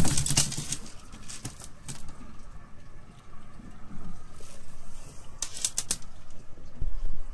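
Handling noise as a freshly caught snapper is moved about on a boat deck: a loud rustle and knock at the start, scattered knocks and clicks, and a quick cluster of clicks near the end. A low rumble starts just before the end.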